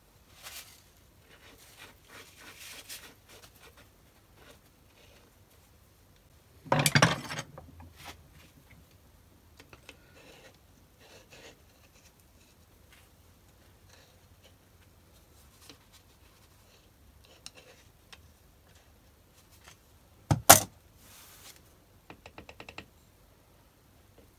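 Steel parts and hand tools being handled on a BS-0 dividing head during reassembly: scattered light metallic clicks and scrapes, with two loud metal clunks, one about seven seconds in and one about twenty seconds in, and a quick run of small ticks near the end.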